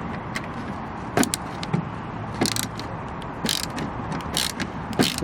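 Screwdriver being turned by hand to drive a screw into a CB radio mount: irregular short clicks and creaks from the tool and screw over a steady background hiss.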